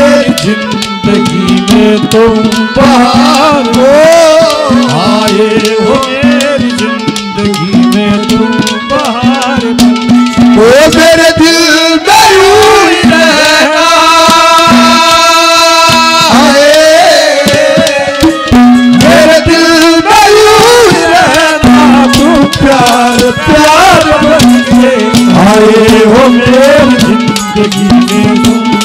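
Loud instrumental interlude of Haryanvi ragni folk music: a harmonium plays a melody over a steady drone, with a fast hand-drum rhythm. Long notes are held steady about midway.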